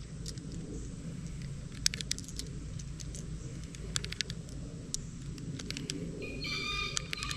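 9mm cartridges being pressed into a Glock 19 magazine: small sharp metallic clicks at an irregular pace, some in quick runs. A brief high-pitched tone sounds near the end.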